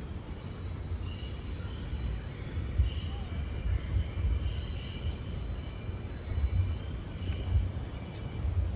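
Outdoor ambience: a gusting low rumble of wind on the microphone, with faint short chirps of distant birds scattered throughout.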